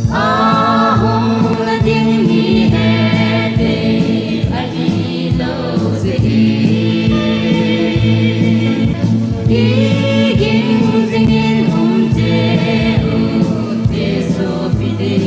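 Gospel song sung by a group of voices together, over sustained bass notes that shift every couple of seconds.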